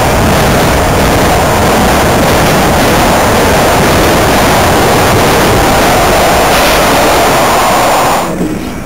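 Washington Metro subway train rushing past a station platform: a loud, steady roar of wheels and air that drops off sharply about eight seconds in as the last car clears the platform.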